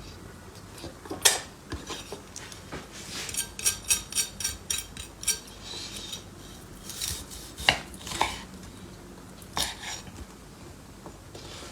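Metal utensils clinking against kitchen dishes: a few sharp knocks, and in the middle a quick run of taps, about five a second, as if stirring or mixing in a bowl.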